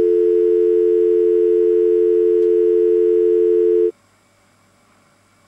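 Telephone dial tone on a line that has just been cut off: two steady tones held together, stopping suddenly about four seconds in.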